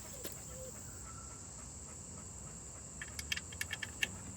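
Steady high-pitched chirring of crickets. About three seconds in comes a quick run of light clicks.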